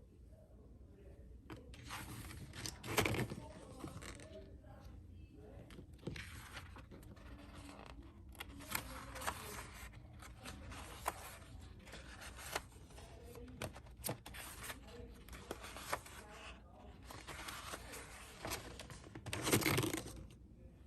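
Paper pages of a disc-bound Happy Planner being turned in a flip-through: quiet rustling with light clicks, and two louder page swishes about three seconds in and near the end.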